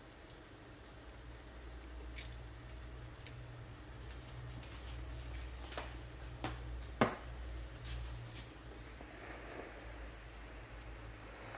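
Food frying gently in a pan over a gas flame, a soft sizzle with scattered crackles and pops, the sharpest about seven seconds in, over a low steady hum.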